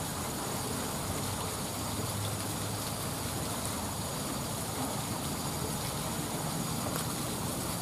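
Steady noise of a flowing river.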